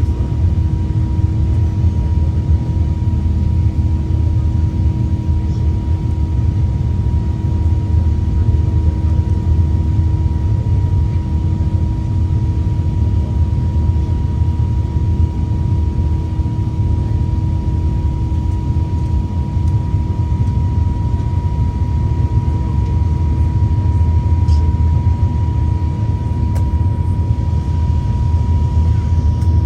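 Steady cabin noise inside an Airbus A380 airliner: a loud, even low rumble of engines and airflow, with a constant hum and a fainter steady whine running through it.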